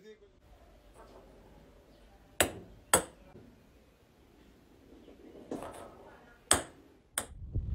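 Ping-pong ball tapping on a wooden desktop as a cat paws at it: five or six sharp, separate clicks with quiet stretches between.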